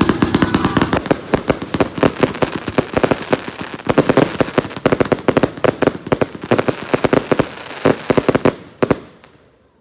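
Fireworks going off in a rapid, unbroken run of loud cracks and pops, many per second, that stops abruptly near the end.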